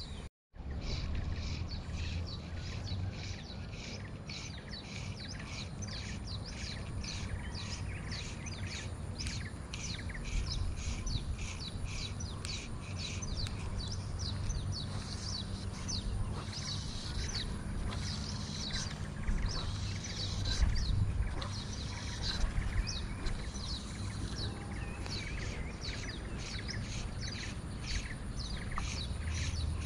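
Open-air ambience: a quick, steady run of short repeated chirping calls over a low rumble, starting after a brief dropout.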